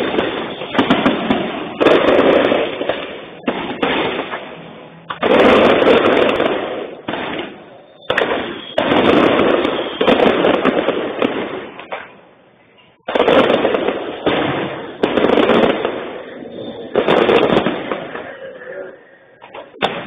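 Aerial fireworks shells bursting in quick succession, one about every second or two, each a sudden bang fading in a long rolling tail that runs into the next, with a brief lull about two-thirds of the way through. Recorded on a phone, so the sound is dull with the high end cut off.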